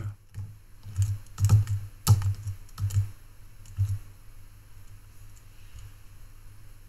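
A run of irregular clicks and knocks for about four seconds, then only a faint steady hum and hiss, which may be the fan running in the room.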